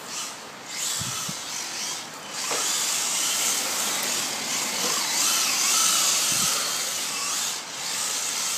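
Electric motors of 1/16-scale Traxxas RC cars whining, the pitch rising and falling as the cars speed up and slow, over a steady hiss.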